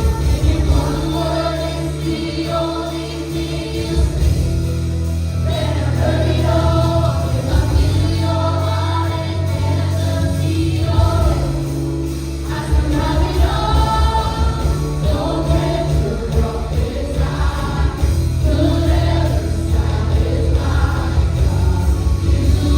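Live worship music: a band playing with a group of voices singing together, gospel-style, over a strong, steady bass.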